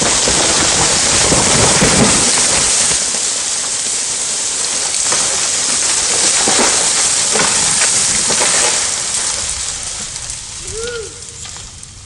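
Large tree coming down after being felled with a chainsaw: a long rush of crackling and snapping as the trunk and branches crash through the surrounding trees into the brush, dying away over the last couple of seconds.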